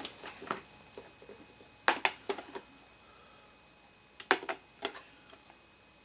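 Plastic golf discs being handled, tapping and clacking against each other as they are set down, in three short bursts of clicks: near the start, about two seconds in and about four seconds in.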